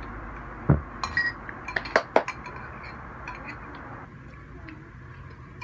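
Spoons and bowls clinking as they eat, with a heavier knock of dishware about a second in and several sharp clinks over the next second and a half.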